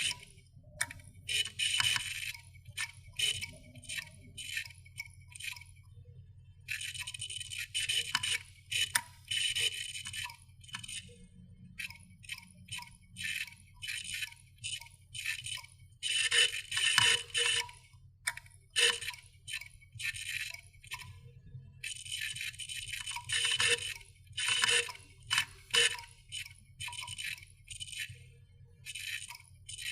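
Failing computer hard drive clicking as it dies: irregular bursts of rapid ticks and scratchy clicks over a steady low hum. The clicking is the sign of a drive at the end of its life, locking up.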